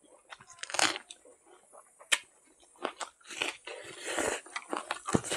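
A person chewing and crunching mouthfuls of food close to the microphone: raw red onion with rice and smoked pork. Irregular wet mouth clicks and smacks, with sharp crunches about a second and two seconds in.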